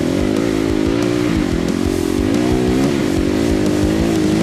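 Dirt bike engine being ridden off-road, its pitch rising and falling every second or so as the throttle is worked, over a steady hiss.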